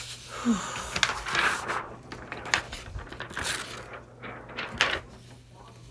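A plastic Cricut cutting mat being handled and slid on the table: irregular rustling and scraping swishes with a few light clicks, dying away near the end.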